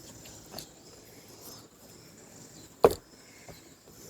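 Hunting gear knocking against a tree trunk while being strapped on: a faint tap about half a second in, then one sharp, louder knock near the three-second mark.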